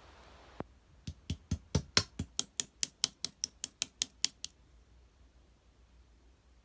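A quick run of about seventeen sharp clicks or taps, roughly four to five a second, that stops abruptly about four and a half seconds in.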